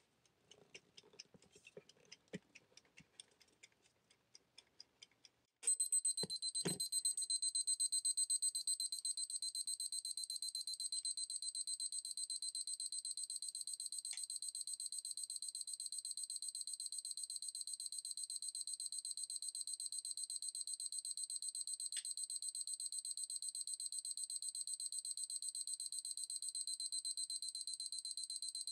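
Luna-P kitchen timer ticking quietly. About five and a half seconds in, its alarm goes off: a rapid, high-pitched electronic beeping that keeps going without stopping. Two knocks come just after the beeping starts.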